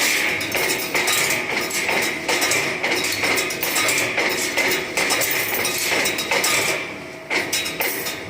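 Background music with a dense tapping percussion rhythm, dipping briefly about seven seconds in.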